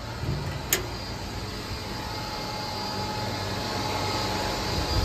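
Steady electric motor hum from the 400 L heating mixer, growing gradually louder, with one sharp click just under a second in.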